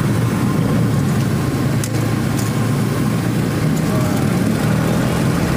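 Steady low drone of motor-vehicle engines running close by, with a couple of faint clicks of metal tongs about two seconds in.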